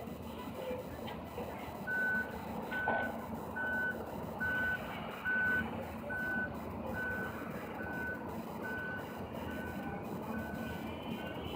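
A fire truck's reversing alarm beeping about a dozen times, a little over once a second at one steady pitch, over the steady low hum of idling engines. The beeping starts about two seconds in and stops near the end as the apparatus backs up.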